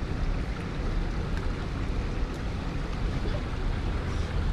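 Steady rush of fast, high water flowing below a spillway, with wind buffeting the microphone as a low rumble.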